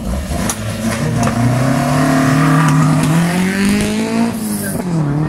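Classic car engines running under acceleration as the cars drive off in a parade. The engine note climbs steadily, then drops sharply just after four seconds in, as at a gear change.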